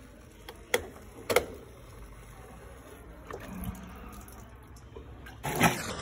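Water running into a top-loading washing machine's tub as it fills, with two sharp clicks about a second in and a louder rush of noise near the end.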